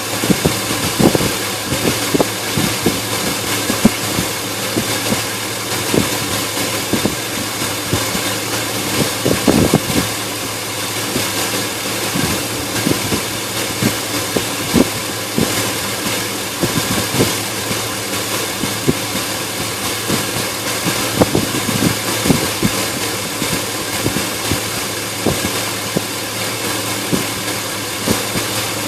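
Car engine idling roughly: a steady running hum broken by irregular stumbles and sharp pops at uneven intervals, the sign of a misfire or uneven running at idle.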